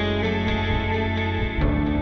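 Background music with guitar; the chord changes about one and a half seconds in.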